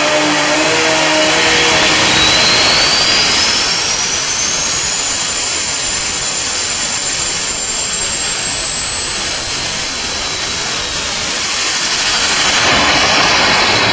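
Four-rotor turbocharged Mazda rotary engine running hard under full load on a dyno, a dense raspy engine noise with a turbo whine rising steadily in pitch over the first five seconds. The whine then creeps higher more slowly and fades about twelve seconds in as the pull ends.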